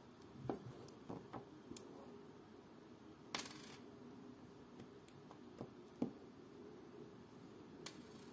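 Faint, scattered clicks and light taps from handling a vintage Omega cal.268 watch movement in its holder and setting its small steel wheels down on the bench mat. The sharpest clicks come just over three seconds in and just after six seconds, over a faint steady low hum.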